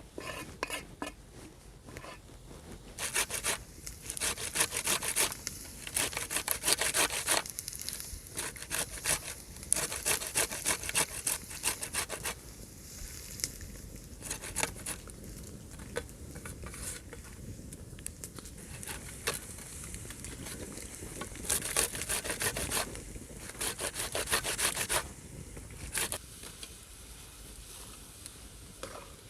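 Bursts of rapid scraping or rubbing strokes, each lasting a few seconds, coming several times with quieter gaps between.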